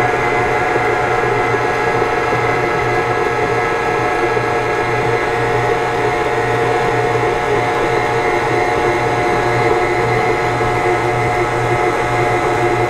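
KitchenAid tilt-head stand mixer's motor running at a steady speed, a constant whine over a low hum, as its dough hook turns flour, water and yeast into a sticky, shaggy bread dough in the steel bowl.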